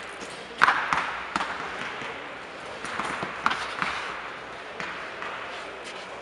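Recurve bows being shot along a line of archers: scattered sharp snaps and thuds of strings released and arrows landing, at irregular intervals, the loudest about two-thirds of a second in.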